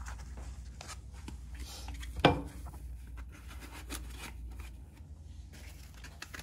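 Small handling noises, light rubbing and ticking, as a hand works at the crankshaft runout fixture, with one sharp metallic clink a little over two seconds in that rings briefly.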